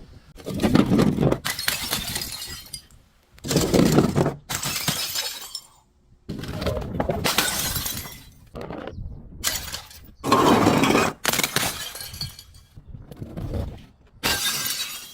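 Glass bottles being smashed: a series of about a dozen separate shattering crashes with crunching, each lasting up to a couple of seconds, with short pauses between them.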